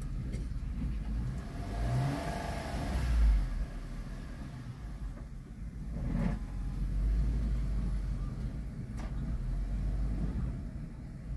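Wind gusting through a car's open windows and buffeting the microphone: an uneven low rumble, with a stronger gust and hiss about two to three seconds in.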